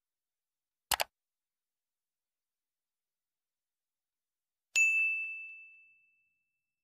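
Two quick clicks about a second in, then a single bright bell ding near the end that rings out and fades over about a second and a half. It is an end-screen sound effect for clicking the notification bell.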